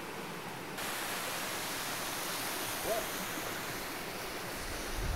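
Steady rush of whitewater in the McKenzie River, growing louder and brighter about a second in. There is a brief chirp about three seconds in and a low thump near the end.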